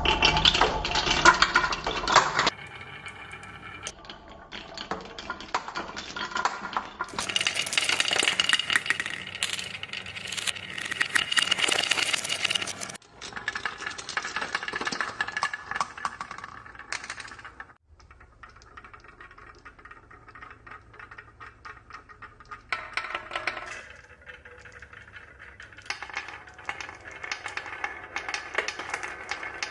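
Marbles rolling and clattering down marble run tracks: many rapid small clicks and rattles. The sound changes abruptly several times, as separate runs are cut together.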